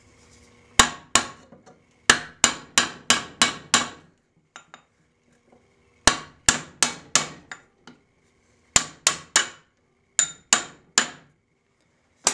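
Hammer blows ringing on steel: a hammer drives a small wedge into a control arm bushing's outer shell, with the arm held in a bench vise, to collapse the shell so it can be driven out. The blows come in quick runs of two to seven strikes, about three a second, with short pauses between the runs.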